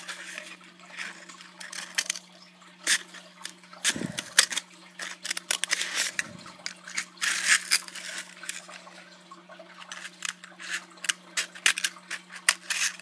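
Hand-writing a letter Z on a homemade bird toy: a run of short scratchy strokes and small taps, over a steady low hum.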